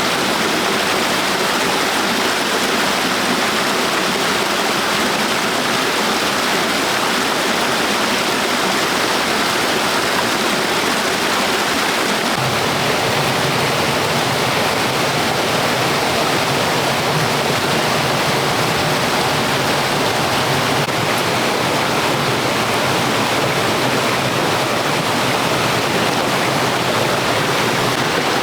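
Steady rushing of flowing water, like a stream or small waterfall, with a deeper rumble joining about twelve seconds in.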